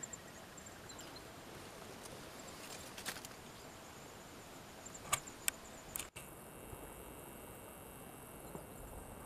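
Outdoor ambience of steady hiss with faint, high insect chirping, broken by a few sharp clicks or snaps around the middle.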